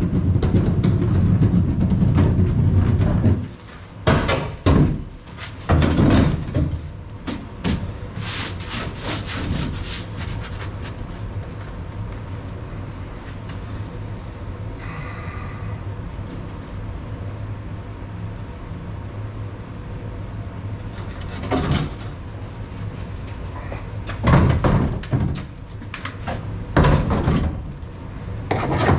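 A steady low mechanical drone that stops about three and a half seconds in, then a low hum with scattered clunks and knocks as a sand-and-salt spreader is worked on and strapped down in a truck's bed, with a burst of several knocks near the end.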